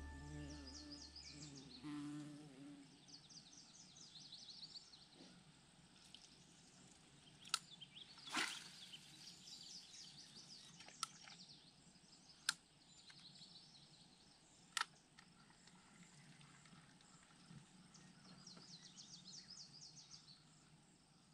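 Faint outdoor evening ambience: small birds singing repeated short trilled phrases, with a handful of sharp isolated ticks through the middle. Background music fades out in the first couple of seconds.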